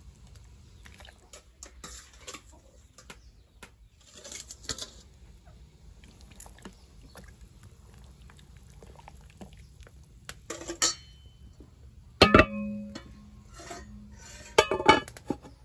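Kitchenware being handled: light clinks and clatter of dishes, pots and utensils, with a few sharper knocks in the last few seconds. One of them, about twelve seconds in, rings briefly like struck metal.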